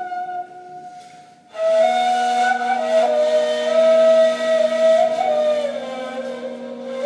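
Two neys, end-blown reed flutes, playing a slow improvised taksim together. The notes die away about a second in, and after a short gap one ney holds a low steady note while the other plays a melody above it that slides downward near the end.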